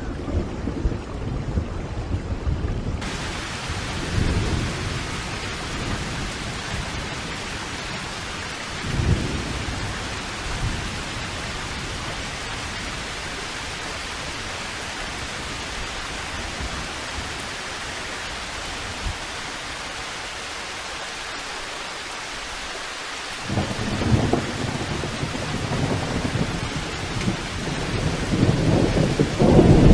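Steady rain with rolling thunder. The rain hiss brightens about three seconds in. Low thunder rumbles come and go, and the thunder swells louder again over the last several seconds.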